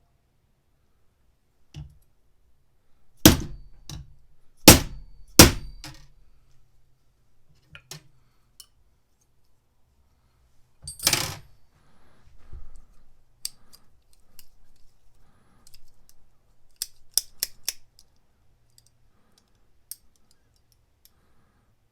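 Metal hand tools, likely the restored steel adjustable pliers, being handled on a workbench: three sharp clacks a few seconds in, a short scraping rustle midway, then a quick run of light clicks.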